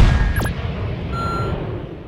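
Logo-sting sound effect: a heavy boom-like impact that rumbles and slowly fades, with a short high beep about a second in.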